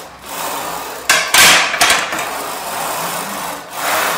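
Smith machine bar being moved on its guide rods: a continuous metallic scraping rub, with a sharp knock about a second in.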